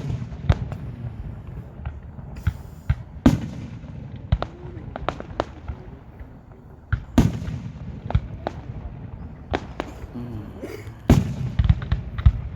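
Fireworks display: an irregular run of sharp bangs and crackles, with heavier booms about three, seven and eleven seconds in.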